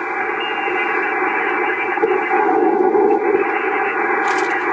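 Static hiss from a homebuilt tube-type 40-meter shortwave receiver, growing louder over the first couple of seconds as its freshly fitted 6CB6 IF tubes warm up and the gain comes up, then holding steady. A faint click near the end.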